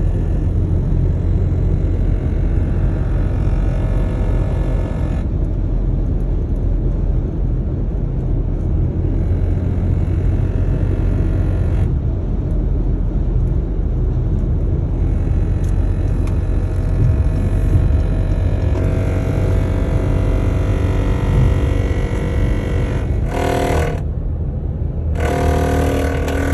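BMW E70 X5 driving at highway speed with a steady road rumble and an intermittent ticking from under the floor pan. The ticking is the sign of a failing, collapsed guibo (driveshaft flex disc). Near the end a short tonal sound comes in twice.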